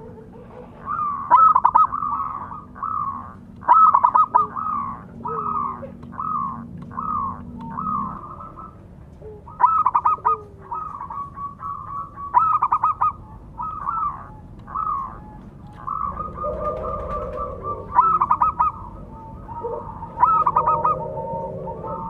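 Zebra dove (perkutut) cooing: a long series of short, soft coo notes about one a second, broken every few seconds by a louder rapid stuttering trill. A second, lower call joins about two-thirds of the way through.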